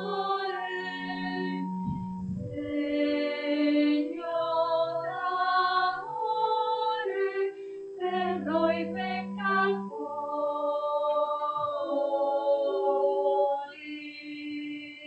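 A hymn sung by voices over organ accompaniment, with long held notes. The music dies away near the end.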